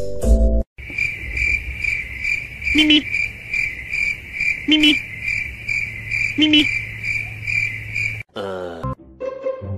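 Cricket chirping: a high pulsed trill repeating about twice a second, starting abruptly and cutting off near the end. A short, lower sound breaks in three times, about two seconds apart.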